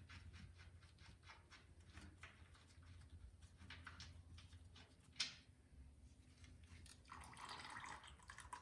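Faint irregular clicks and taps of hand work, with one sharper click about five seconds in and a brief soft hiss near the end.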